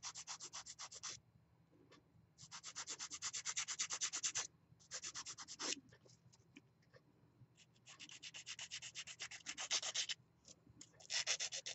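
Beauty Secrets banana nail file rasping back and forth on the sides of acrylic nails, in bursts of fast strokes, about ten a second, with short pauses between.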